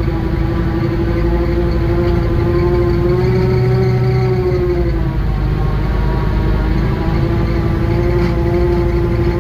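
Small vehicle engine running steadily at speed; its pitch sags briefly about five seconds in, then comes back up.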